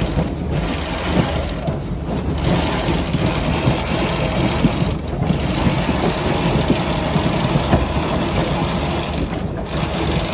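Sailboat winch ratcheting as the jib's furling line is cranked in, a continuous clicking over a low steady rumble, with a few brief pauses.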